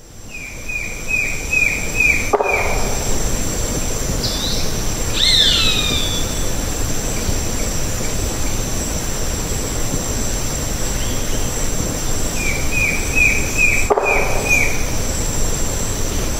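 Tropical rainforest ambience with a steady high insect drone. A bird gives a quick run of about seven short falling notes near the start and again about twelve seconds later, and a few falling whistles come around five seconds in. Two faint knocks fall between them.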